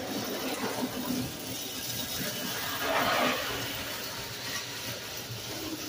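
Lionel prewar toy train running on three-rail track, a steady mechanical rumble of wheels and motor on the rails that swells louder about three seconds in as the train passes close.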